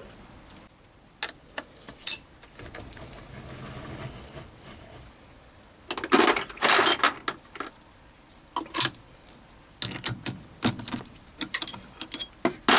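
Metal-on-metal clinks and clatter of steel tooling being handled on a mini lathe: the toolpost drill taken off and the three-jaw chuck loosened with its chuck key. Scattered sharp clinks, with a louder clatter about six seconds in lasting about a second.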